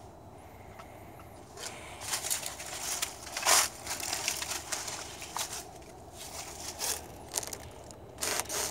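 Dry fallen leaves crunching and rustling underfoot in irregular crackles as feet move through them, starting about a second and a half in, with one louder crunch near the middle.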